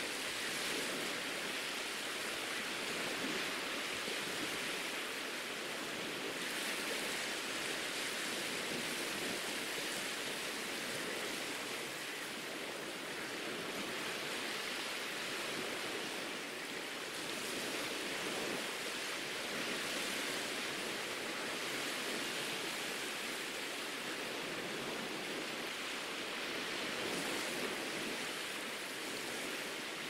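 Soft, small sea waves washing up onto a sandy beach: a steady hiss of surf that swells and eases every few seconds.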